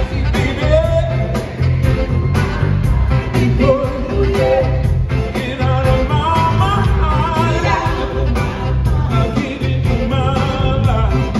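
Live pop band playing an upbeat song with a steady drum beat, a man singing the lead vocal over it, recorded from the audience in a large theatre.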